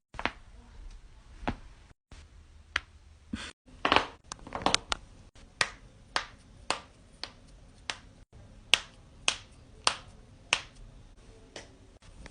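Joints cracking and popping, a string of sharp single cracks every half second to a second, with a quick run of several pops about four seconds in. Brief dead-silent gaps fall between the clips.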